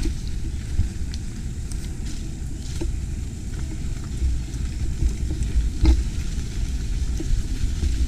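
Mountain bike rolling fast over a dirt singletrack, heard from a camera on the bike: a steady rumbling crackle of tyres and frame rattle, with a couple of sharper knocks as the wheels hit roots or rocks.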